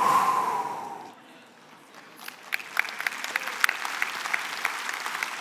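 A church audience reacts: a sudden loud burst of crowd voices fades over about a second, then applause starts about two seconds in and keeps going.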